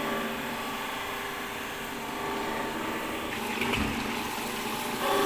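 Industrial knife grinding machine running with a steady hum made of several even tones, with a short low rumble about four seconds in.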